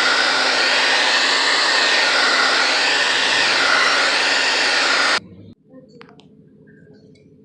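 Aerosol can of gloss enamel spray paint spraying in one continuous hiss for about five seconds, then cutting off suddenly.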